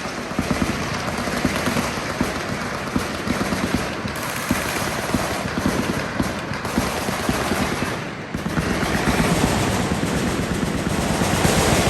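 Automatic gunfire from many machine guns firing at once: a continuous rattle of overlapping shots, with a brief lull about eight seconds in before the firing picks up again.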